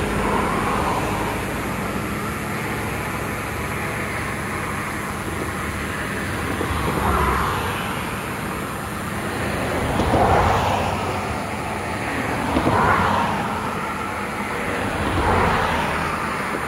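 Steady road-traffic noise with four vehicles passing, each a swell that rises and fades over a second or two, the loudest about ten seconds in.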